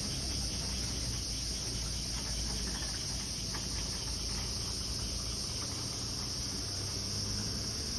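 Steady high-pitched chorus of insects singing in the trees, over a low background rumble.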